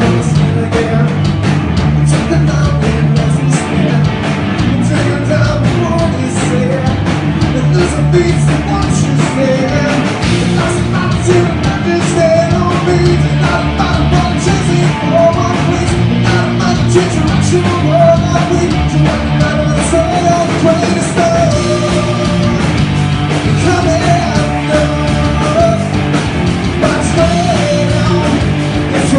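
Grunge rock band playing live and loud: electric guitars, bass and drums, with a male singer's vocals over them.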